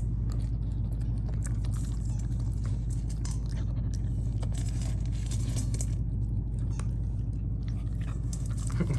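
Rottweiler puppy chewing and crunching dry kibble out of a stainless steel bowl, in irregular crunches, over a steady low hum.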